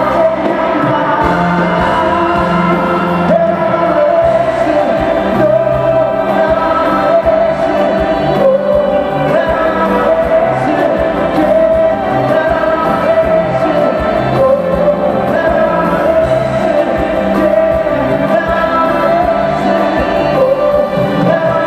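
Live concert music with singing, amplified through an arena sound system and heard from the stands.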